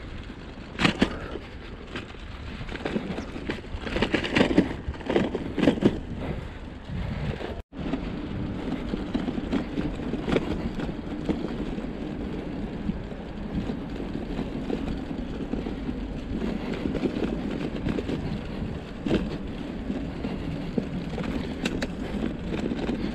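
Bicycle rolling along a paved riverside path: steady tyre and riding noise, with sharp rattles and knocks as the bike goes over bumps, several of them in the first six seconds.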